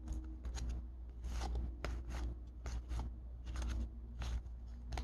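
Baseball cards being flipped through by hand, one slid off the stack after another: a run of short, soft cardboard flicks and slides at an uneven pace, over a faint low hum.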